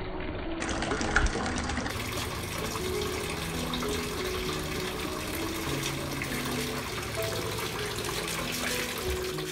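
Background music, a simple melody of held notes, over a steady rushing hiss, with a single thump about a second in.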